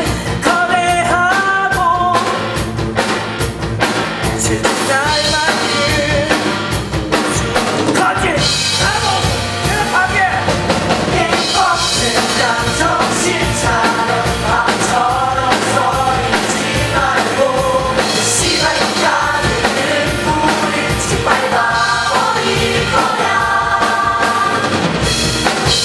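Stage cast singing a rock musical number, backed by a live band with drums keeping a steady beat.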